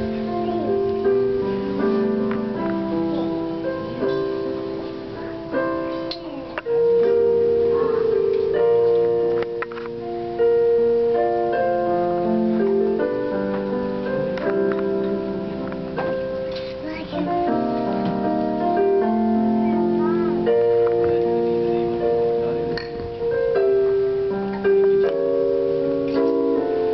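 Keyboard playing slow, sustained chords that change every second or two.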